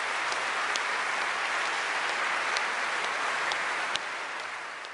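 Audience applauding, a steady spread of many hand claps that grows a little quieter about four seconds in.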